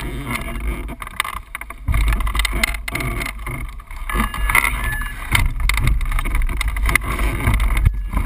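Wind buffeting the microphone, a low rumble that gets stronger about two seconds in, with grass brushing against the camera in short scratchy clicks.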